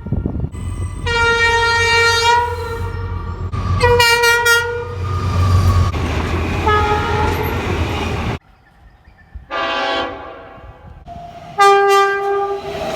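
Train air horns sounding a series of chord-like blasts, three of them over the low rumble of a moving train. The rumble cuts off abruptly about two-thirds through, and another horn then gives two more blasts.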